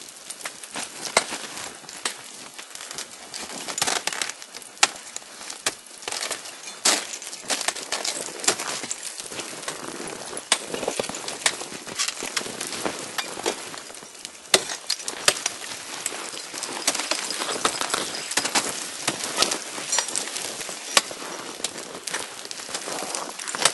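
Ice axe picks and crampon points striking the ice of a frozen waterfall: sharp, irregular cracks every second or two, with ice breaking and crackling between the strikes.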